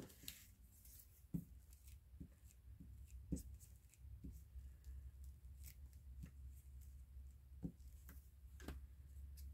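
Faint handling sounds of paper crafting on a tabletop: a dozen or so short, irregular clicks and taps of paper and small tools being moved and pressed, over a low steady hum.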